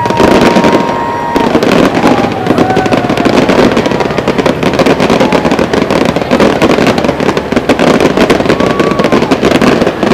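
Fireworks going off in a rapid, dense barrage: many bangs and crackles overlapping without a break, with a held whistling tone in the first second or so.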